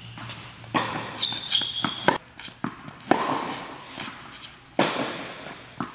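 Tennis rally on an indoor hard court: a ball struck by rackets and bouncing, several sharp pops that echo in the hall. A short, high shoe squeak on the court comes about a second in.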